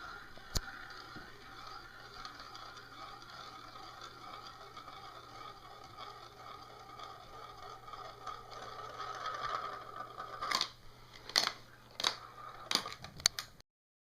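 Marbles rolling along a toy marble run track: a steady rolling whir, then about ten seconds in, five sharp clacks of marbles striking the track.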